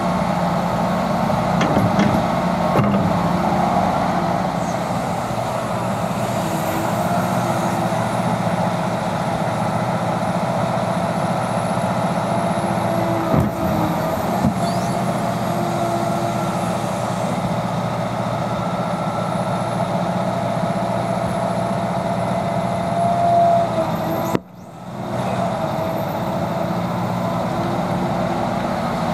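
Liebherr R 926 crawler excavator's diesel engine and hydraulics running steadily under load while digging and loading soil, a hum with a faint whine over it and a few knocks. The sound drops out suddenly for a moment about three-quarters of the way through.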